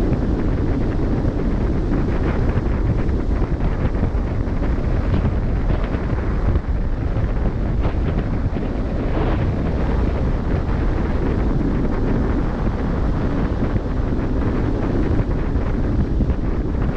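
Wind buffeting the microphone from a cruise ship at sea, a steady low rush over the wash of the open sea.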